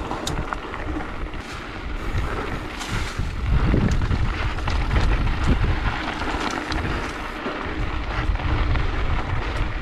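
Mountain bike riding down a rocky trail: tyres running over stones, with many small knocks and rattles from the bike and a low rumble of wind on the microphone, getting louder about three and a half seconds in.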